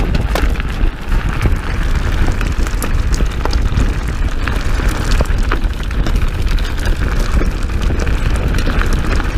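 Mountain bike rolling fast down a gravel trail: heavy wind rumble on the action camera's microphone, with tyres crunching over loose gravel and frequent small clicks and knocks from the bike rattling over the stones.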